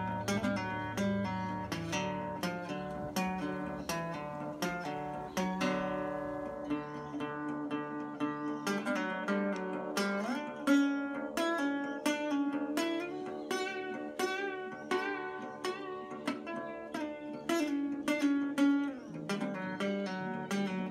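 Background music of acoustic guitar: plucked notes in a steady rhythm over lower bass notes.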